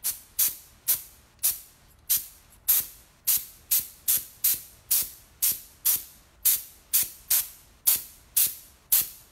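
Short blasts of compressed air from an air-compressor blow nozzle, about two a second, each a sharp hiss that trails off, blowing wet paint across a lampshade.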